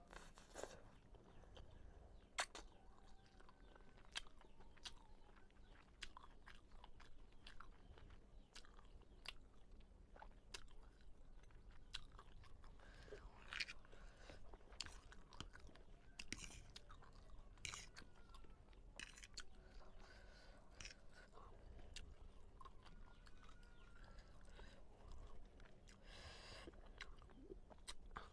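Close-miked chewing and slurping of fried noodles, with many short sharp mouth clicks spread through. Longer slurps come about halfway through and again near the end.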